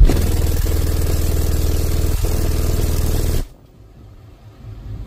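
Truck's car-audio subwoofers, driven by Taramps Smart 8K amplifiers, blasting a 20 Hz test tone for about three and a half seconds and then cutting off suddenly. The tone is loud and harsh, the recording overloaded. It is an SPL burp that measures 154.25 dB at 20 Hz.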